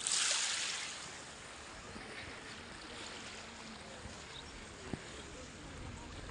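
Beach ambience: a soft wash of surf on sand at the start, hissing and fading over about a second, then a low, steady background hiss of calm sea.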